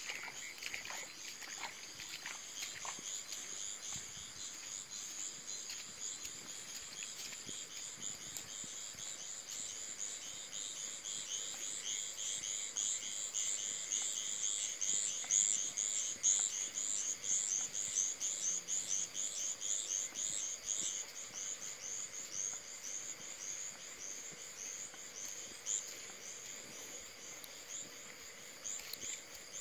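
Night insects, crickets or katydids, chirping in a dense, high-pitched pulsing chorus that swells louder around the middle and fades a little near the end.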